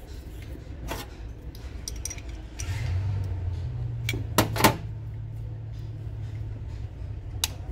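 Sharp metal clinks of a combination spanner against a diesel injector's body, the two loudest in quick succession about four and a half seconds in and a lighter one near the end. A steady low hum comes in about three seconds in and runs underneath.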